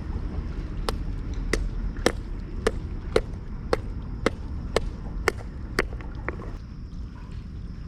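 Eleven or so sharp, evenly spaced knocks, about two a second, as the bait is chopped up; they stop a little past six seconds in.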